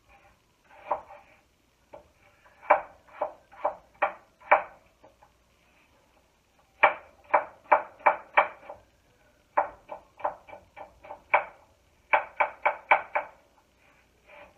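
Knife chopping peeled apple into small pieces on a wooden cutting board: four runs of quick strokes, about three a second, with short pauses between the runs.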